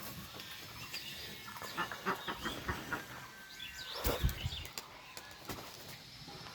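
Pigeons in a loft, with a run of short sharp knocks about a second and a half in and one louder burst about four seconds in.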